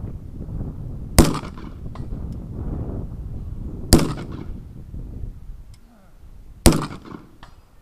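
Three single rifle shots, about two and a half seconds apart, each a sharp crack with a short echo trailing off. The shots are from an M4-type carbine.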